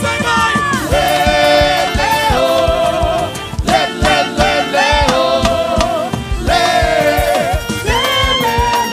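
Quadrilha junina music: long held sung notes over a band with a steady drum beat.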